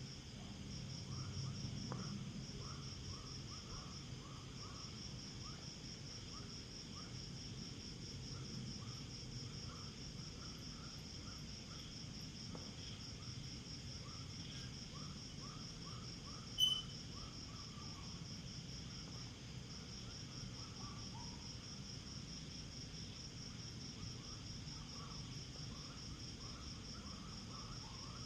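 Night insects, crickets among them, calling in a continuous fast pulsing trill, with another caller repeating short lower chirps several times a second over a low steady rumble. A single sharp click sounds about two-thirds of the way through.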